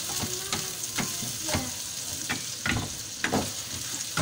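Sliced hot dogs, ham and ground pork sizzling in a nonstick frying pan, with a spatula stirring them and scraping and knocking against the pan at irregular moments.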